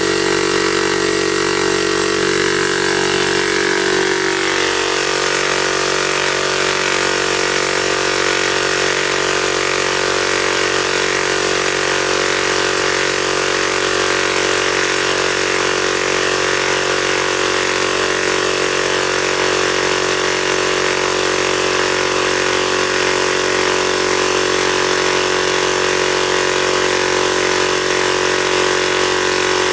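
A 12-volt direct-drive piston air compressor running steadily with a loud, even hum, its tone shifting slightly about four seconds in.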